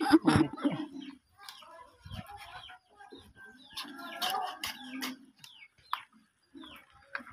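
Chickens clucking in a run of short calls, loudest just after the start and again about four seconds in.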